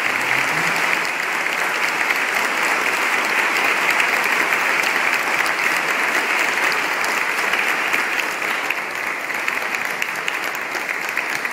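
A congregation applauding: a long, steady round of many hands clapping, dying down a little near the end.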